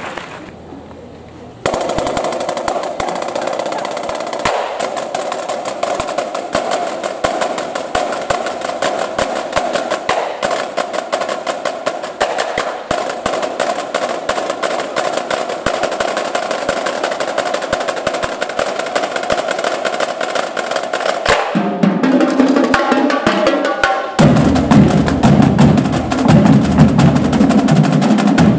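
A marching drumline's snare line playing fast rolls and rapid sticking on high-tension marching snares. Deeper drums join in about three quarters of the way through, and the playing gets louder.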